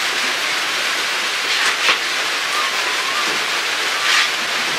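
Steady hiss of rain falling on a tin roof.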